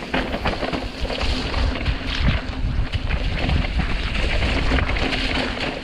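Mountain bike running down a muddy trail in heavy rain: wind buffeting the microphone over the splash of tyres through mud and water, with many short knocks and rattles from the bike.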